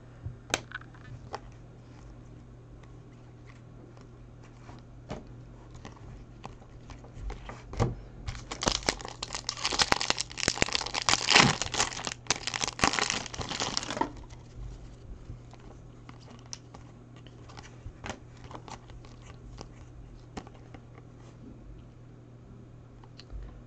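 Foil wrapper of a Topps Chrome jumbo card pack crinkling and tearing as it is pulled open, for about six seconds in the middle. Before and after it come light clicks and slides of cards being handled, over a low steady hum.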